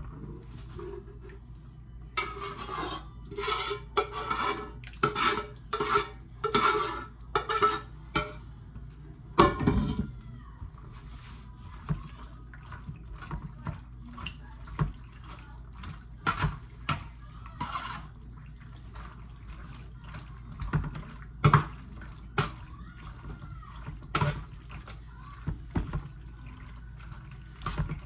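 A spoon scraping thick meat sauce out of a skillet in a run of repeated strokes, then a louder clank about ten seconds in. After that a utensil clinks and scrapes against a metal baking pan as rigatoni and sauce are stirred together.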